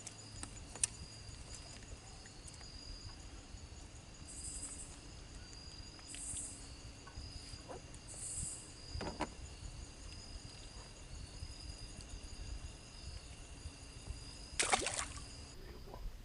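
Evening insects calling in a steady high chorus, with three short higher buzzes in the middle. A few sharp clicks and knocks from tackle or boat handling cut in, the loudest near the end.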